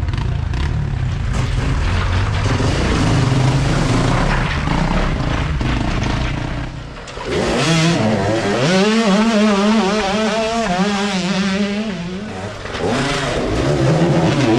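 Dirt bike engines revving as riders splash through a shallow creek crossing, with water spraying. At first there is a rough low rumble. About halfway through, a dip is followed by one bike's engine close by, its pitch wavering up and down as the throttle is worked through the water.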